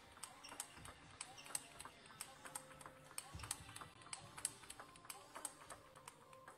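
Table tennis rally: the ball clicking off the rackets and bouncing on the table, many quick, faint, irregular clicks.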